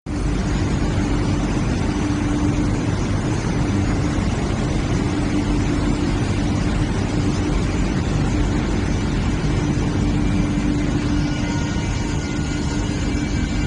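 Embroidery backing paper production line running: the fibre drum machine and its belt drives give a loud, steady mechanical noise with a steady hum. Faint high whines join near the end.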